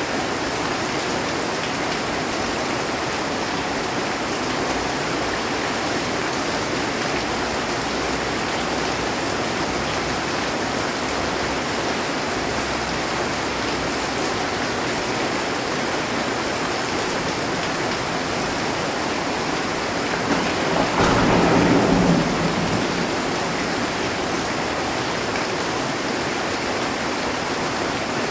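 Heavy rain drumming steadily on a metal roof, with a single short roll of thunder about three quarters of the way through.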